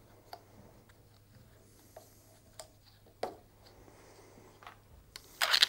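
PTFE tape being wound onto the threaded end of a steel pipe and the roll pulled away: faint handling with a few light clicks, then a louder brief rustle near the end.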